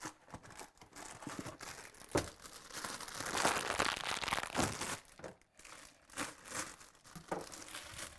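Crinkling and tearing of a Hungry Jack pancake-mix package being handled and opened, loudest in the middle few seconds, with a few sharp clicks.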